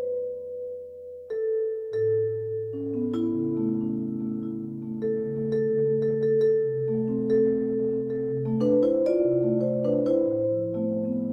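Sampled vibraphone voice from a gigKAT 2 sound module, played four-mallet on a malletKAT controller: long, overlapping chords that ring on and change every second or so.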